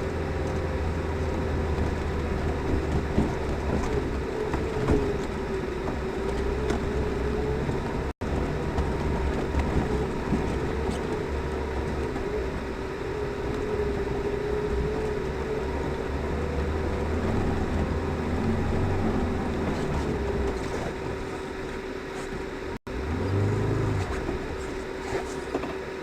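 Lada Niva 4x4 driving on a winter forest track: steady engine and drivetrain noise with a constant hum and occasional knocks.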